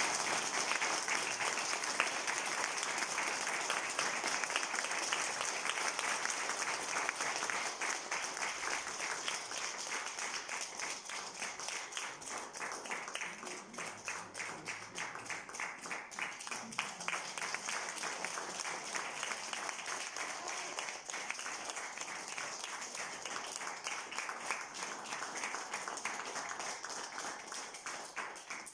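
Audience applauding: many hands clapping in a dense patter that slowly fades and thins out toward the end.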